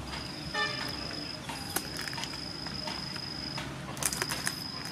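Insects trilling on one steady high note that breaks off briefly now and then, with a few sharp clicks and cracks of crab shell as a cooked crab is bitten and sucked by hand, the loudest cluster near the end. A short pitched note sounds about half a second in.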